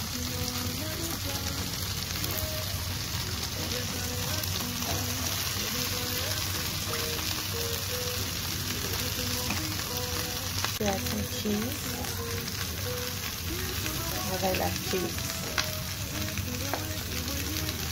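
Butter and lobster tails sizzling steadily on a hot grill pan.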